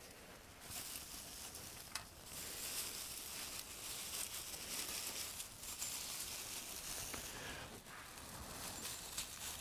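Dry grass rustling and crinkling as it is twisted and pulled apart by hand into a tinder bundle, with a few sharp snaps of stems.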